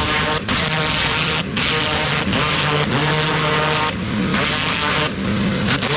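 Pressure washer running, with the hiss of the high-pressure water jet over the steady drone of its motor and pump. The spray breaks off briefly about half a dozen times.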